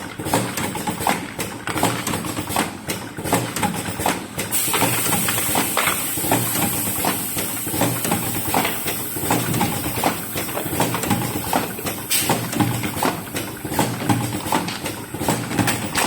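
Automatic cartoning machine running, with a steady rhythm of rapid mechanical clacks and knocks over a low hum. A high hiss joins in about four and a half seconds in.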